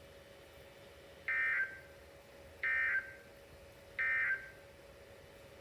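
EAS end-of-message data bursts through a Midland WR-300 weather radio: three short digital bursts about 1.3 seconds apart, the signal that closes the severe thunderstorm warning broadcast.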